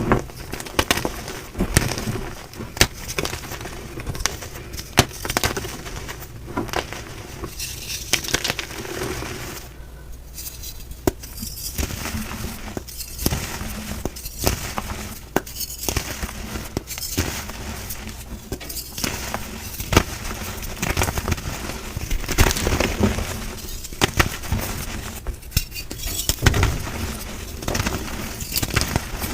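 Blocks of gym chalk being crushed and crumbled: a dense, irregular run of crisp cracks and crunches, some sharp enough to sound glassy.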